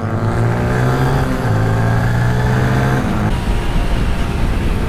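Yamaha Fazer 250 single-cylinder motorcycle engine accelerating, its note climbing in pitch with a short break about a second and a half in. About three seconds in it drops back to a lower, steady cruising note with wind rush.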